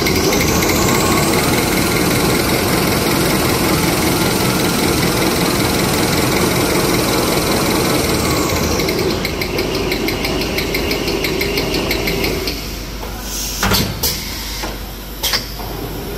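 Toilet paper rewinding machine running. A high whine climbs as it speeds up and falls away after about eight seconds as it slows. Near the end the running noise drops and several sharp clunks follow.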